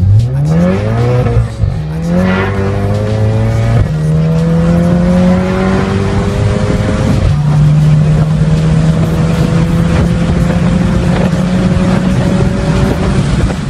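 Tuned VW Golf 7 GTI's turbocharged four-cylinder under full-throttle acceleration, heard from inside the cabin. The engine note climbs through each gear and drops at quick upshifts about a second and a half, four and seven seconds in. Each gear pulls longer than the last.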